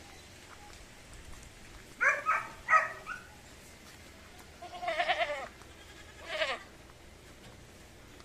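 Goats bleating: a few short calls about two seconds in, then a longer, wavering bleat and a shorter one a second later.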